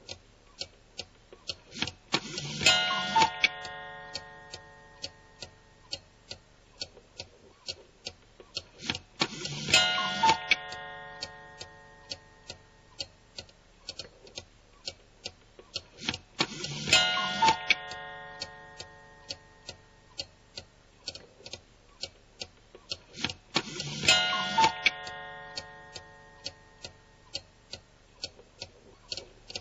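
Clock ticking steadily, with a ringing chime struck about every seven seconds, four times, each fading out over a few seconds.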